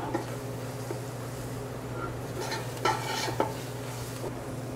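Metal spoon stirring and scraping chopped herbs, onion and garlic frying in a large stainless steel stockpot, with a light sizzle; the scraping keeps the herbs browning evenly. A few louder scrapes come a little under three seconds in and again around three and a half seconds.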